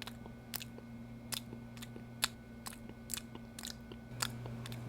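Scottish Fold kitten licking its paw: a run of short, sharp wet clicks, about two a second, over a faint steady hum.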